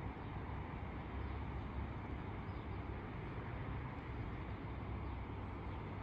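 Steady outdoor ambience: a low, unsteady rumble with a soft hiss above it, with no single event standing out.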